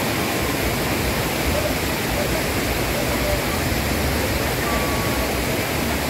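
Steady rushing of a tall waterfall, its falling water making an even, unbroken roar.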